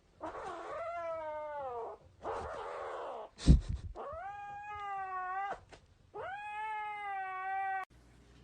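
A cat yowling in three long, drawn-out calls, the first falling in pitch, with a sharp thump about three and a half seconds in.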